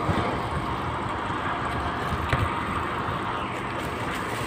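Steady low background rumble, with a couple of brief crinkles and clicks from a plastic bag being opened around French fries, about two seconds apart.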